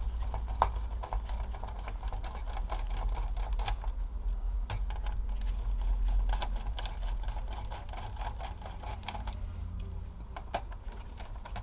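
Many quick, irregular small clicks and taps of hands and tools working on an opened laptop's plastic chassis, over a low steady hum that fades about ten seconds in.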